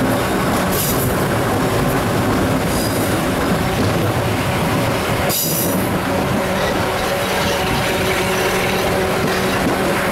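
Train wheels running slowly over rails and pointwork: a steady rumble broken by brief high wheel squeals, three times.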